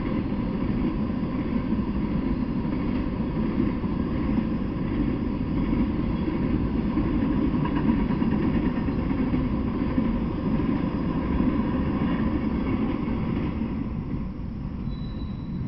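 Freight train of autorack cars rolling past: a steady rumble and clatter of steel wheels on the rails, easing off a little near the end.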